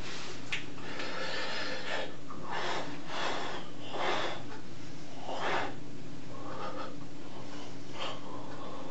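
A distressed man breathing heavily and sniffling into his hands, a breathy rush about once a second at uneven intervals, over a steady low room hum.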